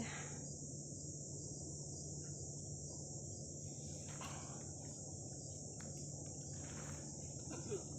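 Steady, high-pitched chorus of trilling insects, with a few faint rustles.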